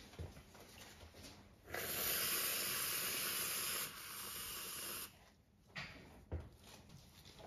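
Aerosol whipped-cream can spraying cream: a steady hiss lasting about three seconds, strong at first and weaker for its last second.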